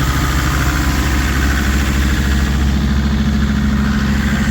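Land Rover Defender engine idling steadily in the extreme cold, just after finally starting following a long, hard cold start with jump leads and blowtorch heating.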